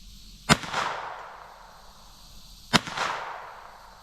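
Two shots from a Ruger SR22 .22 LR pistol, about two seconds apart. Each is a sharp crack followed by a rolling echo that fades over about a second.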